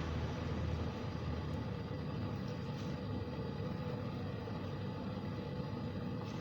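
Steady background rumble and hiss with a faint hum, with no clear event standing out.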